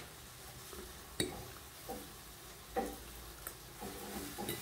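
A metal fork clicking and scraping against a plate, several light separate strikes, the sharpest about a second in, with quiet chewing between.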